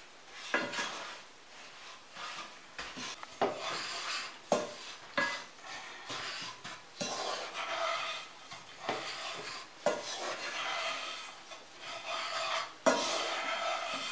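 Wooden spatula stirring and scraping breadcrumbs as they toast in butter in a pot, in irregular strokes with occasional sharp knocks of the spatula against the pot.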